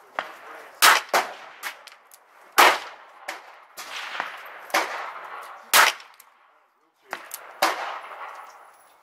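Gunshots from a .38 revolver fired about four times, a second or two apart, each with a short echo under the firing-line roof. Quieter shots from other positions on the range fall in between.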